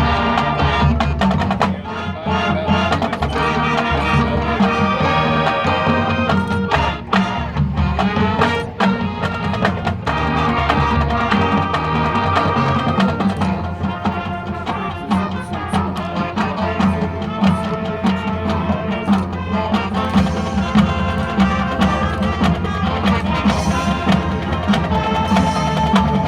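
High school marching band playing its field show: sustained wind and brass chords over steady drum and percussion strikes.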